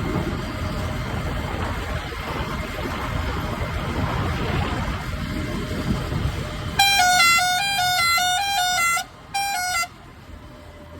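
A vehicle's engine rumbles low and steady. About seven seconds in, a loud musical vehicle horn plays a quick tune that jumps back and forth between two notes for about two seconds, stops, then sounds once more briefly.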